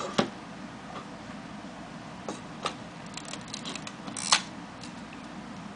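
Mechanical clicks from a Mamiya/Sekor 1000 DTL 35mm SLR camera being worked by hand: a few separate sharp clicks, a quick run of light ratcheting ticks as the film advance lever is wound, and a louder metallic clack about four seconds in.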